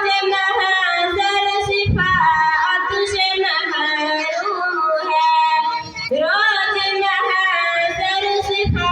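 A solo voice singing a nazm, an Urdu devotional poem, in long, ornamented melodic phrases, with a few short low thumps underneath.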